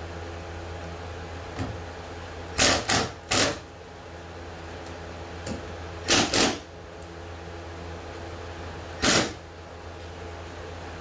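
Cordless drill-driver running screws into a canoe's vinyl gunwales in short bursts: three quick runs about two and a half seconds in, two more about six seconds in, and one near nine seconds, over a steady low hum.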